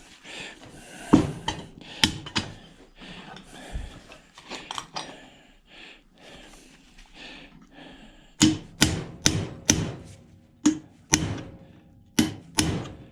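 Hammer blows on a washing machine motor, trying to knock loose a part that won't move. A few scattered knocks and handling clatter come first, then a run of about eight sharp strikes, roughly two a second, over the last five seconds.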